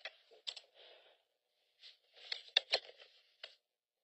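Paper rustling and shuffling, with a few sharp clicks and taps in a short burst about two and a half seconds in.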